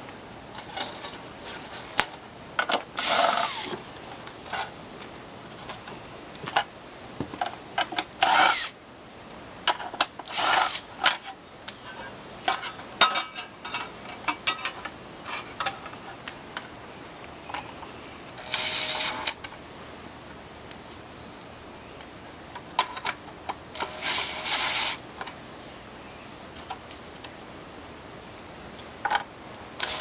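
Sheet-metal parts of an HVAC evaporator coil clattering and scraping as they are handled, with several short runs of a cordless drill working screws in a thin metal plate, each about a second long.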